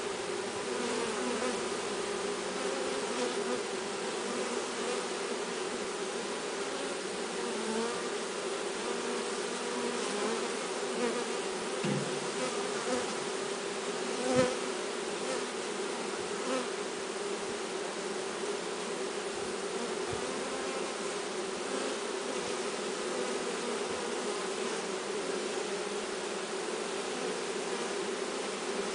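Steady, dense buzzing of a honeybee swarm in flight, many bees humming together. A single brief knock sounds about halfway through.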